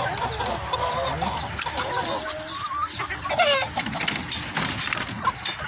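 Several chickens clucking and calling over one another, with one louder call about three seconds in.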